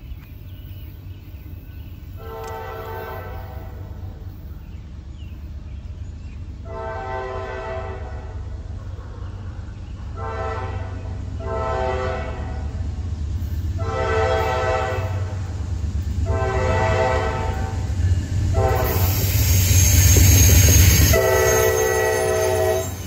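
Nathan K5LA chime horn on a Norfolk Southern AC44C6M locomotive sounding a long crossing sequence: eight blasts, mostly long with a couple of short ones, getting louder as the train approaches. Under the horn, the diesel locomotives' low rumble builds, and it swells into a loud rush of engine and wheel noise as the train reaches the crossing near the end.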